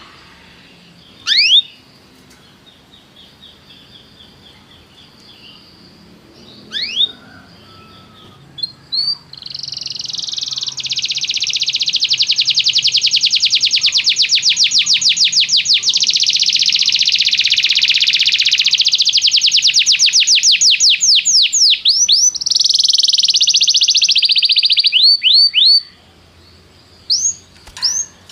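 Domestic canary singing: a few sharp falling whistled notes and a soft quiet trill, then about a second in ten a long, loud, rapid trill of repeated falling notes lasting some fifteen seconds, shifting into a buzzier roll before breaking off into a few single notes.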